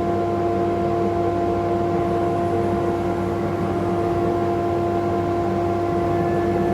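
Vacuum cleaner attached to a CNC router running with a steady, even whine while the machine sweeps it over the bed. A faint higher tone joins near the end.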